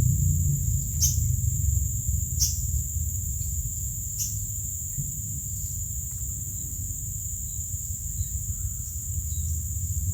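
Steady high-pitched drone of insects, crickets or cicadas, with three short downward-sliding bird calls in the first half, over a low rumble.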